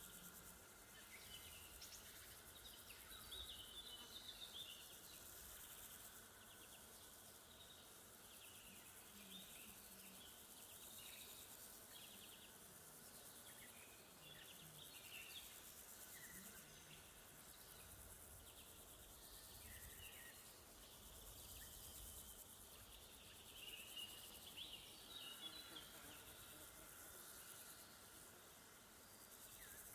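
Faint summer woodland ambience: a steady high-pitched chirring of insects such as crickets, with scattered short bird calls that come in small clusters a few seconds in and again near the end. A faint low rumble of wind sits beneath.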